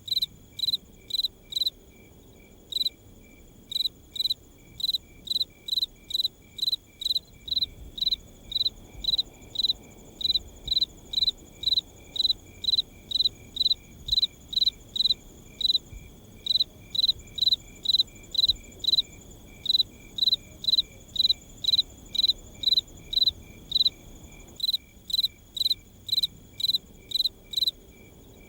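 Night ambience of a cricket chirping in a steady, regular rhythm, about two short high chirps a second, over a faint background hiss.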